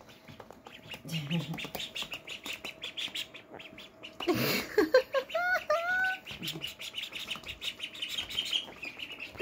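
Two-week-old ducklings peeping rapidly. About four and a half seconds in there is a short loud rush of noise, followed by a run of about five louder, longer peeps.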